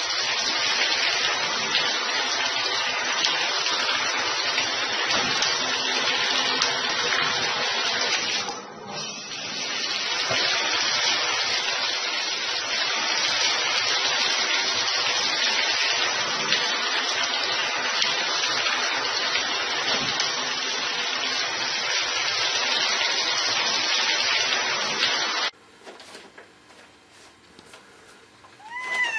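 Handheld shower spraying water into a bathtub: a steady hiss that dips briefly about a third of the way in and cuts off suddenly near the end. Right at the end a cat starts a single meow that bends down in pitch.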